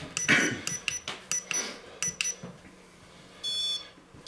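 Electronic ghost-hunting sensor beeping as it is set up. A run of short high chirps comes first, with a brief rustle near the start, then a steady high beep of about half a second near the end.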